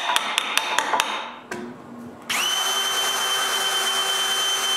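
A quick, even run of sharp metallic clicks, about five a second, in the first second. About halfway through, a cordless drill starts up and runs steadily with a high whine, boring a pilot hole into maple.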